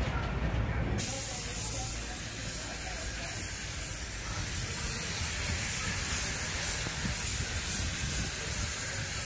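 Compressed-air paint spray gun hissing steadily as it sprays paint onto a truck's cargo body, with a low rumble underneath. The hiss starts suddenly about a second in.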